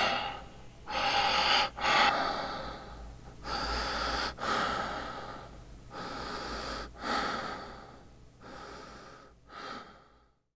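Heavy breathing: a series of noisy breaths, about one a second, growing fainter and stopping just before the end.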